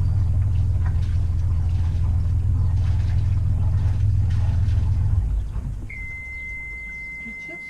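Sailboat's inboard engine idling with a low steady rumble, then shut off about five seconds in. About a second later a steady high beep starts and holds: the engine panel's alarm, which sounds when the engine stops with the key still on.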